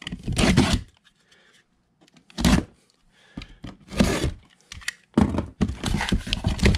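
A taped cardboard box being opened by hand: packing tape slit along the seam and the flaps pulled apart, in a few separate scraping bursts, then thick crackly rustling of paper packing near the end.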